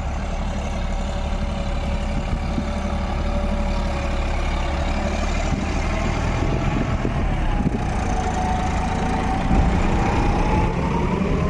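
John Deere 5210 tractor's diesel engine running steadily, with a faint tone that rises a little near the end.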